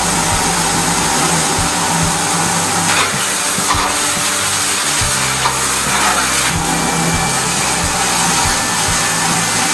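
High-pressure drain jetter spraying water through a turbo drill nozzle into a clogged toilet drain to clear it: a loud, steady hiss over a low, steady engine hum, with a few light knocks about three to six seconds in.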